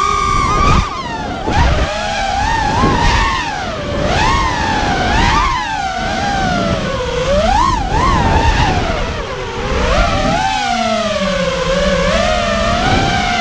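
Quadcopter's 2206 2200kv brushless motors spinning DAL 5x4x3 tri-blade props, heard from the onboard camera: a whine that swoops up and down in pitch with the throttle, then settles to a steadier, lower whine for the last few seconds.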